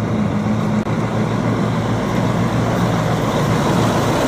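Diesel engine of a Mack semi-truck tractor unit running steadily as the truck drives along the road, a low, even engine sound.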